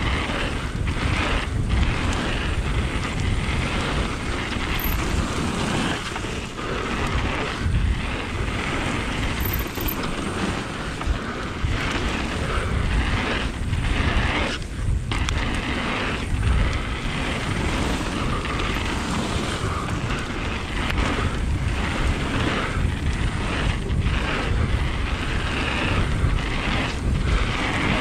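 Wind rushing over the camera microphone and mountain bike tyres rolling over a hard-packed gravel trail at speed, a steady rumble throughout.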